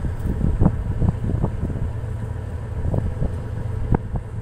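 Steady low rumble aboard a small fishing boat, with wind buffeting the microphone and a scatter of light knocks.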